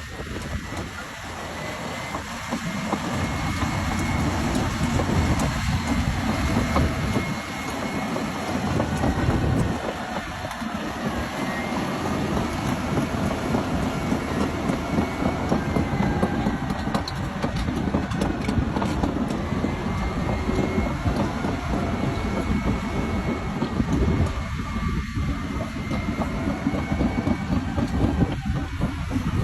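Caterpillar D7 crawler dozer working under load: its diesel engine runs hard while the steel tracks clatter, over a thin high whine that rises and falls. The sound swells a few seconds in and stays loud.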